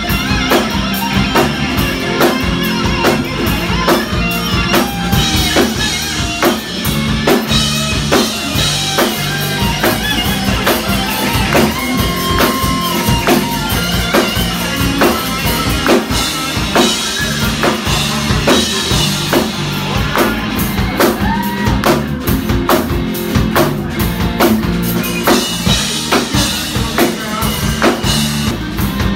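Live band music: an electric guitar playing a lead line with notes bent up and down in pitch, over a drum kit keeping a steady beat.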